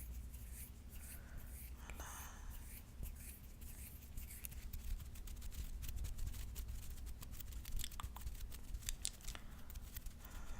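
Fingernails scratching the palm of a hand close to the microphone: dry scratches and ticks that come thicker and faster from about three seconds in. Soft heavy breaths come in the first couple of seconds.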